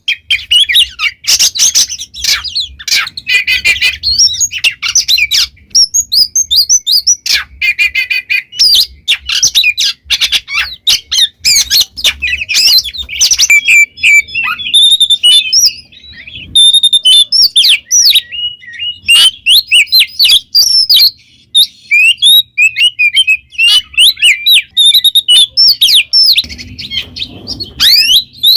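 Oriental magpie-robin in full song: a loud, fast, nearly unbroken run of varied whistles, chirps and short trills.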